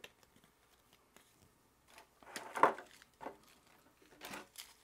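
Paper rustling and crinkling from a folded paper user manual being handled, loudest about halfway through, then a few short rustles and handling knocks.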